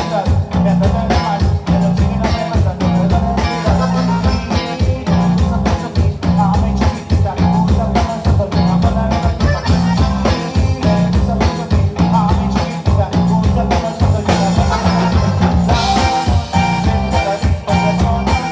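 Live conjunto band music, loud in the hall: button accordion leading over guitar, bass and a drum kit keeping a steady, quick beat.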